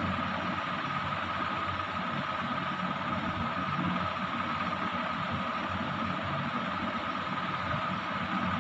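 Steady machine running noise: a constant low hum with an even whine above it, unchanging throughout.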